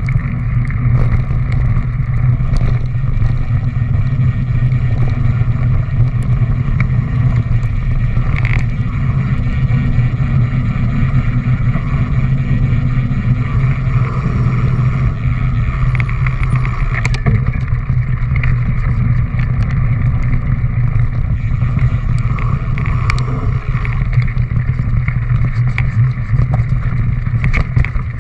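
Wind rushing over a mountain biker's action camera with the rumble and rattle of the bike riding over a rough dirt trail, with occasional sharper knocks from bumps.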